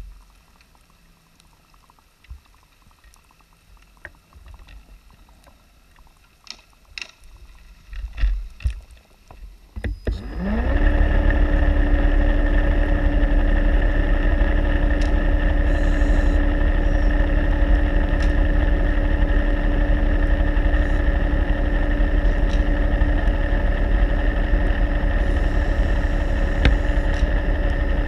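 Underwater, a motor spins up about ten seconds in with a quick rising whine, then runs steadily and loudly with a constant hum. Before that there are only a few faint clicks and knocks.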